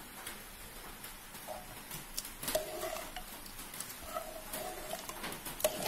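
Steel ladle stirring watery rice and chickpeas in a pressure cooker, with a few sharp clinks of metal on the pot, the loudest about two and a half seconds in and near the end.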